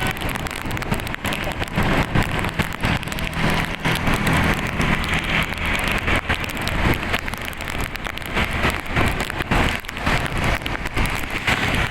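Rain falling steadily, with many sharp drops striking close by, over a low vehicle engine hum that fades out about halfway through.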